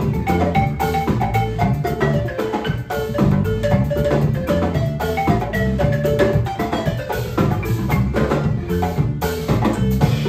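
Live band music: wooden xylophones play a quick melody of struck notes over a steady groove of drum kit and djembe, with electric guitar and bass.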